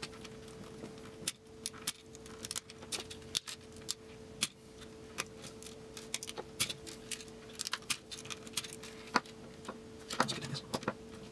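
Irregular small clicks and taps of a tool working at a plastic 12-gauge slug shell hull to cut it open, over a faint steady hum.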